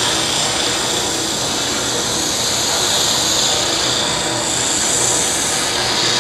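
Drum sander running steadily, with a wooden workpiece pressed fairly hard against the abrasive drum: an even hiss of sanding over the machine's hum.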